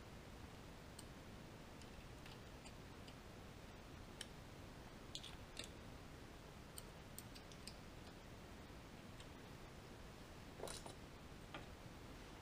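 Near silence with a few faint, scattered metallic clicks as a small hand tool and screws are handled at a steel flange on a milling machine's knee.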